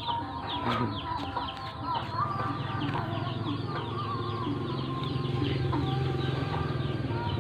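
Birds chirping: many short, falling chirps, several a second, over a low steady hum.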